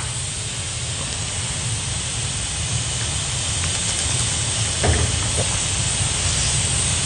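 A steady hiss over a low rumble, with a faint knock about five seconds in.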